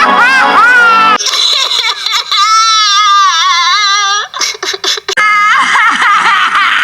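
A woman's voice doing cartoon vocal effects: high squeals and gliding cries, then a long wobbling high-pitched wail about two seconds in, a few choppy short sounds, and more cries with laughter-like sounds.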